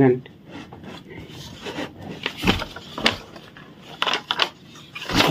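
Folding bamboo fruit basket being handled and opened out: a handful of light wooden knocks and clicks with some rubbing, spread over the last few seconds.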